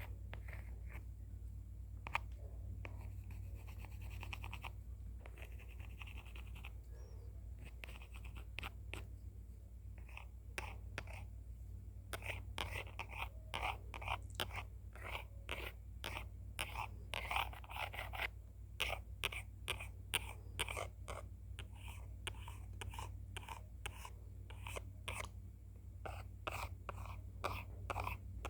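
Pencil sketching strokes, short scratchy strokes that are sparse at first and turn quick and dense about halfway through, over a low steady hum.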